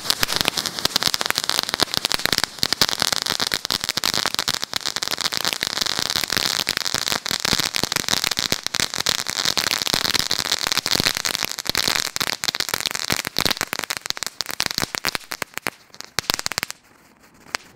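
Flakkas Lesli F1 ground firework, a strip of flash-pressed pellets with crackling, going off: a loud, dense, rapid run of crackling pops with a steady hiss. It thins out over the last few seconds and stops about a second before the end, leaving a few stray pops.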